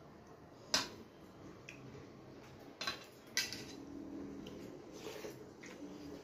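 Hand mixing rice and curry on a stainless steel plate: fingers scraping the steel, with sharp clinks against the plate about a second in and twice around three seconds in.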